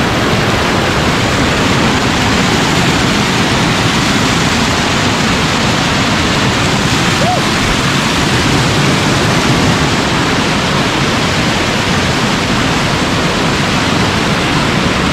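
Waterfall cascading over rocks, heard close up as a loud, steady rush of water.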